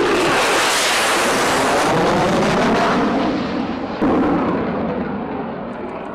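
Jet fighter engine noise, loud and rushing. A sudden fresh surge comes about four seconds in, and the sound then grows duller as its high end falls away.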